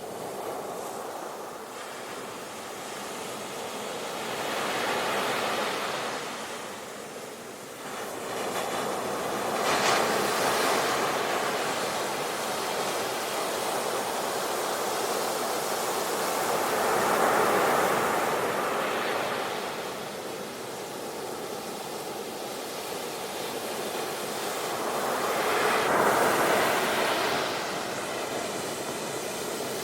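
Ocean surf: waves breaking and washing ashore, the rush of water swelling and fading about four times.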